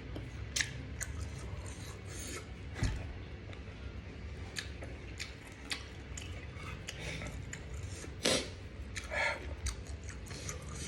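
Food-handling sounds while eating barbecued squid: scattered small clicks and clinks, the loudest about eight seconds in, over a low steady hum.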